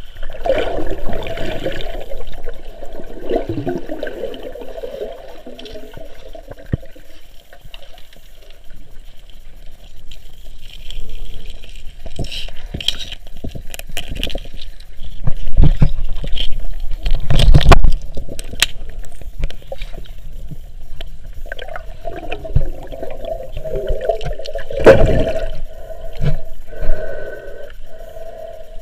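Underwater camera audio as a snorkeler swims: water gurgling and rushing around the camera, with irregular knocks and scrapes and louder surges of water noise about halfway through and again near the end.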